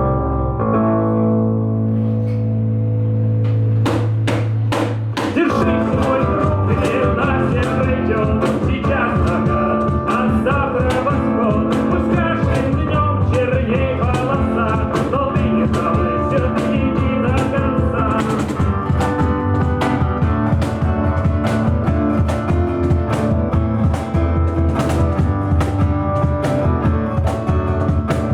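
Music: a held low note opens, then a full band with a steady drum beat comes in about five seconds in.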